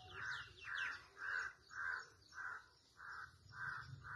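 A crow cawing in a steady series, about eight caws at nearly two a second, with a few faint chirps of small birds near the start.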